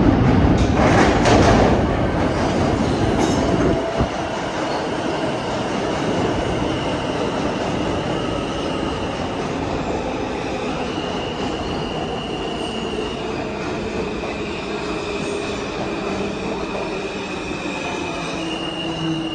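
Kawasaki R160 subway train pulling into an underground station: a loud rumble as the front of the train arrives, dropping about four seconds in. The cars then roll past along the platform with high, steady squealing tones that shift in pitch every few seconds.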